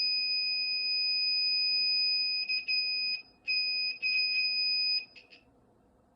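Piezo buzzer of a breadboard freezer alarm sounding one steady high-pitched tone, triggered because the thermistor has been taken out of the cold water and senses warmth. It stutters with brief dropouts and clicks, then cuts off about five seconds in.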